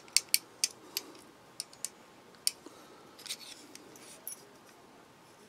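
Sharp metallic clicks of an Eafengrow EF973 folding knife's blade being opened and closed, about a dozen in irregular succession, some in quick pairs. The blade is being checked for centring after reassembly and sits off-centre.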